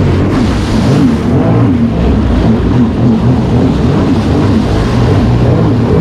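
Sea-Doo personal watercraft engine running under way, its pitch rising and falling as the throttle and load shift.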